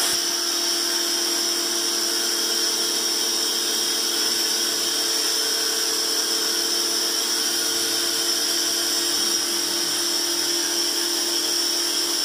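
Kawasaki HPB-302 electric pressure washer running steadily while spraying soapy water from its foam-bottle attachment: an even motor-and-pump whine over the hiss of the spray.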